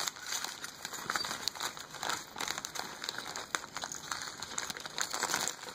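Clear plastic zip-top bag crinkling and rustling as hands handle it, with many small sharp clicks from the broken light-bulb glass shifting inside.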